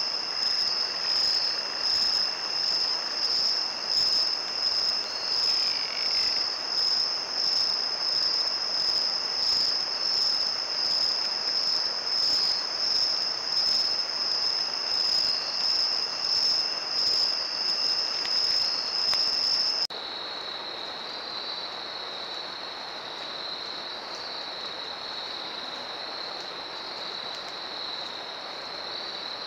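Night chorus of crickets and other insects: a steady, shrill high trill that swells about once a second. About two-thirds of the way through it switches abruptly to a quieter, slightly lower-pitched chorus.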